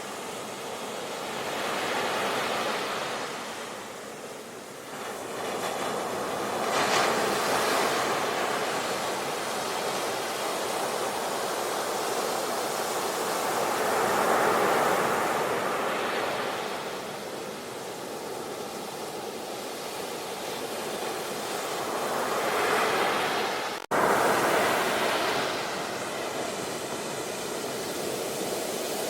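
Ocean surf: waves breaking and washing in, swelling and fading every few seconds. About 24 seconds in the sound drops out for an instant and cuts straight back in at full level.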